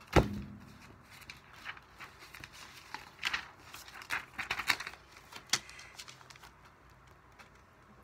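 A sharp thump just after the start, then rustling and clicking of a spiral-bound workbook's paper pages being handled and flipped, from about three to nearly six seconds in.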